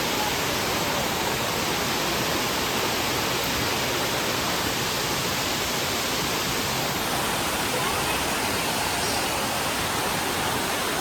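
Waterfall: water pouring down in a steady, dense rush of noise.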